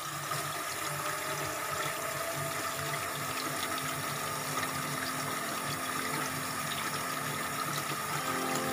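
Tap water running steadily into a stainless steel bowl of raw chicken in a sink, splashing over the pieces as they are rinsed.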